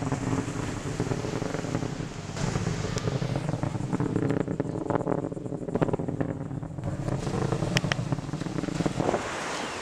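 Distant Atlas V rocket's RD-180 first-stage engine as a low rumble with a rough crackle while the rocket climbs.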